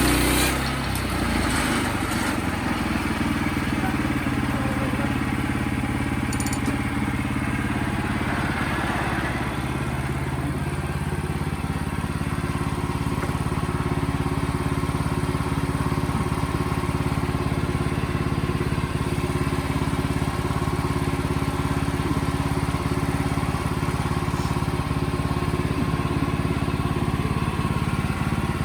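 Wood-Mizer portable band sawmill's engine running steadily.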